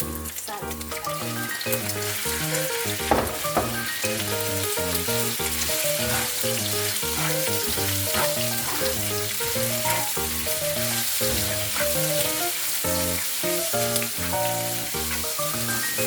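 Pieces of pork belly sizzling in hot fat in a pan as they are stirred, the fat rendering out. Background music with a simple melody plays throughout.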